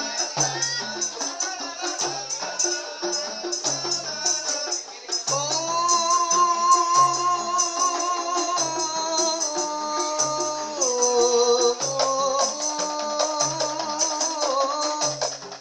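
Qasidah music: tambourines shaken and struck in a fast, steady jingling rhythm over a low drum beat about once a second. About five seconds in, a held melody joins, stepping from note to note with a slight waver.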